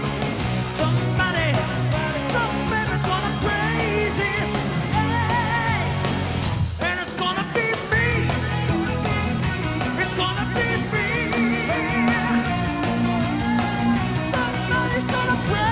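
Rock band playing live: a male lead vocal with wavering vibrato over electric guitar and keyboards, the band thinning briefly about halfway through.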